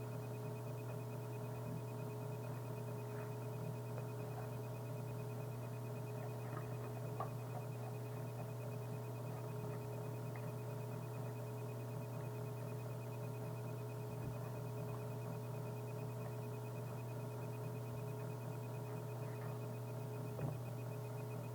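Steady electrical hum with a few fixed higher tones, broken by a couple of faint clicks.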